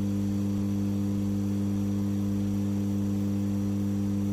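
Samsung inverter refrigerator compressor running with a steady low hum, driven by the repaired inverter board.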